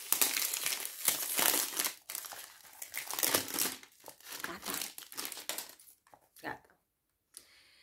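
Packaging crinkling and rustling as a perfume box is unwrapped by hand: dense for the first couple of seconds, then in shorter, sparser snatches that die away near the end.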